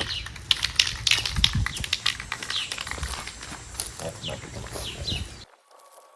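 Birds chirping in repeated short, falling calls over a low rumble and scattered clicks; the sound drops out briefly near the end.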